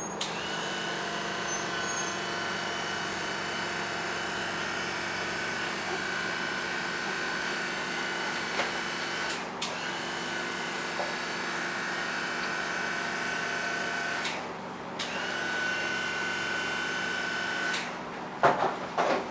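A small electric motor whining steadily. It stops briefly twice and spins back up each time, and a few knocks come near the end.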